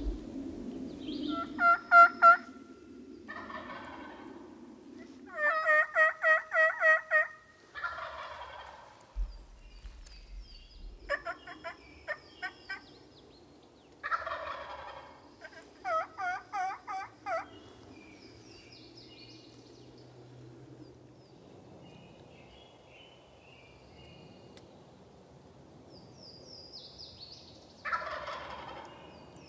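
A wild turkey gobbler gobbles about five times, a hoarse rattling call of about a second each time. Between the gobbles come loud, evenly spaced series of yelps from a turkey call, the longest about six notes. Small birds chirp faintly in the quieter second half.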